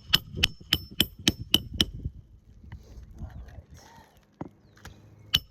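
Hand hammer driving roofing nails into a shingle: a quick run of about eight blows with a metallic ring in the first two seconds, then one more blow near the end.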